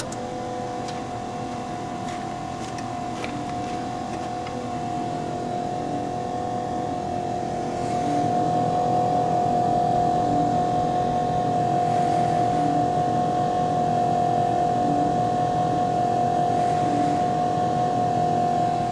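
2001 Dodge 24-valve Cummins 5.9 L inline-six diesel running steadily with a high, even whine over the engine note, just after its fuel system has been primed through the new spin-on filter. It gets a little louder about eight seconds in.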